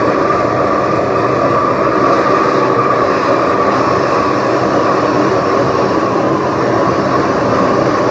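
Small aluminum-melting furnace running: a steady, loud roar with a constant whine through it.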